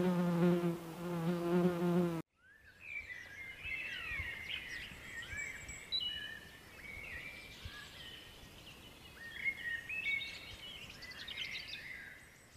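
A fly or bee buzzing close by with a steady, slightly wavering hum, cut off suddenly about two seconds in; then woodland songbirds chirping and whistling, several short phrases overlapping, with small bursts of song in the middle and near the end.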